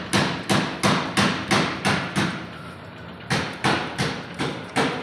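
Repeated hammering, about three blows a second, with a pause of nearly a second just after the middle.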